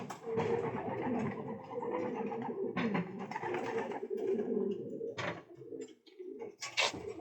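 Many domestic pigeons cooing together in a loft, their low calls overlapping, with a few short sharp noises among them. The cooing thins out near the end.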